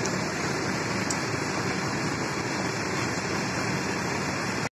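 Steady running noise of large intercity bus engines at a bus terminal as buses manoeuvre in. It cuts off suddenly near the end.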